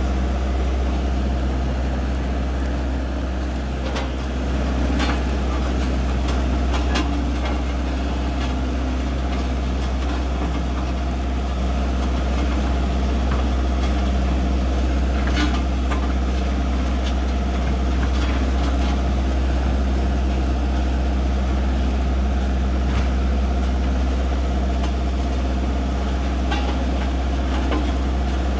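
Single-drum road roller's diesel engine running steadily, a continuous low drone, with a few sharp clicks scattered through.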